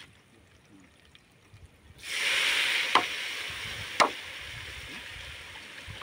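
Food hitting a pan of hot oil: a sudden loud sizzle starts about two seconds in and slowly dies down, with two sharp clicks about a second apart.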